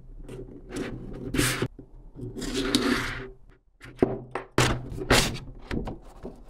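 Stiff watercolor paper being worked free of a glued block and flexed by hand: a run of sharp crackles and taps, with a longer rustling scrape about two and a half seconds in.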